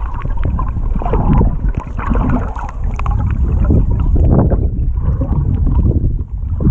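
Wind buffeting the microphone, loud and rumbling, over water splashing and sloshing.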